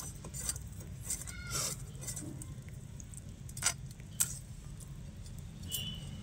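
Tilapia being scaled and cut against the blade of a boti: irregular scratchy scrapes and clicks of fish and scales on the metal, with a couple of sharper clicks a little before and after the middle, over a steady low hum.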